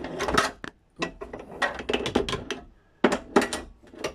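Irregular knocking and clattering of heavy metal door closers being pulled out and handled, in several bursts with short pauses between.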